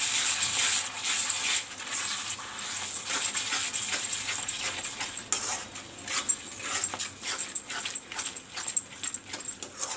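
Masala paste frying in oil in an iron kadai, sizzling, while a spatula stirs and scrapes it against the pan in quick repeated strokes, which come thicker in the second half.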